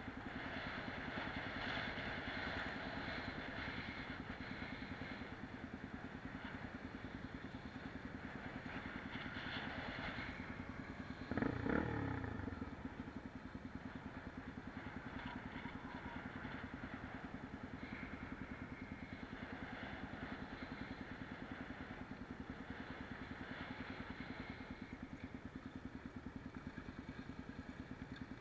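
Motorcycle engine heard on board while riding, running steadily with an even pulsing beat. About eleven and a half seconds in there is a brief louder sound that falls in pitch.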